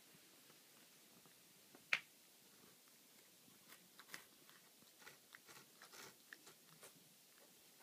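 Cat licking a plastic laundry basket: a run of faint, irregular tongue clicks and smacks on the plastic, with one sharper click about two seconds in.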